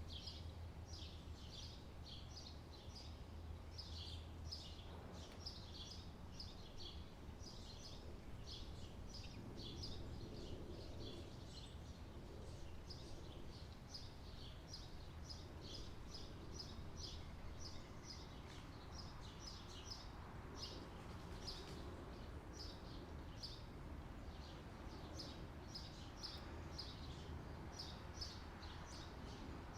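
Small birds chirping continuously, short high chirps following one another a few times a second, over a steady low hum.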